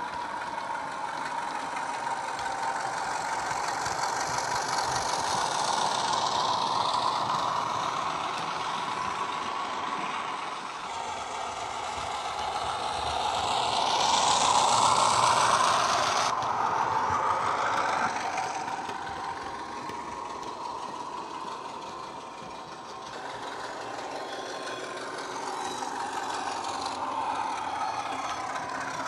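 Diesel engine sound of a Class 33 model locomotive, played by its Loksound 5 DCC sound decoder (SWD sound) through a small bass-enhanced speaker while the model runs under power. It swells and fades as the model moves around the track, and shifts abruptly a few times.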